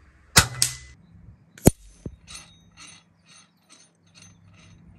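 A .22 Daystate Wolverine R PCP air rifle fires with a sharp crack and a quick second snap, and a second sharp crack follows about a second later. Then a run of metallic clinks, about two a second and fading, comes from the hanging steel plates of a swinging target.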